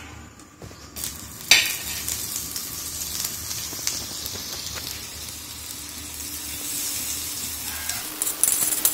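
Butter sizzling as it melts on a hot dosa tawa, the sizzle rising about a second in as the butter hits the pan. A sharp tap sounds about a second and a half in.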